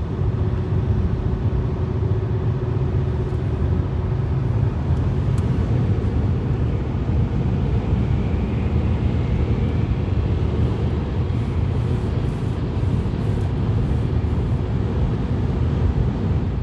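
Steady engine and tyre noise of a car driving at road speed, heard from inside the cabin as a low, even rumble.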